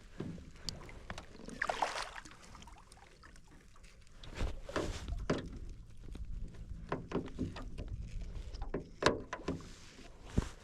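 Water splashing and sloshing as a caught blue catfish is lowered into the water and released. The splashes come irregularly, with scattered small clicks and knocks.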